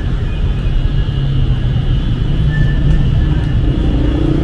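City street traffic: a steady low rumble of car engines and tyres.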